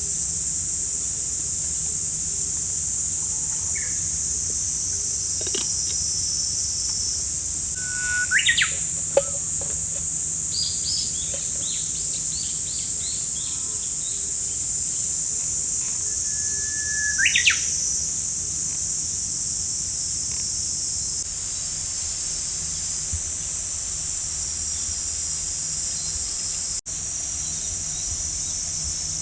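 Birds calling over a steady high-pitched insect drone. Twice, about eight and seventeen seconds in, a held whistled note sweeps sharply upward, and between them comes a quick run of short high notes.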